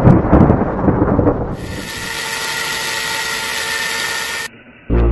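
A thunder-like rumble fading for the first second and a half, then an angle grinder's cutting disc cutting iron: a steady, high-pitched whine and hiss for about three seconds that cuts off suddenly, with music starting at the very end.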